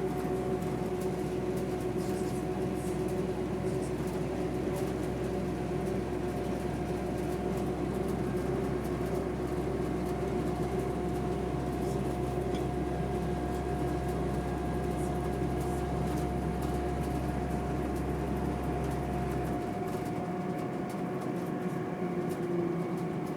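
Train running with a steady whine over rumble. The deep rumble drops away about twenty seconds in, and near the end the whine begins to fall in pitch.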